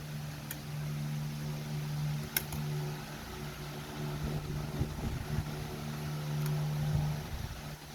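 A steady low machine hum, like a fan, with a couple of sharp clicks in the first few seconds and some soft low knocking in the second half.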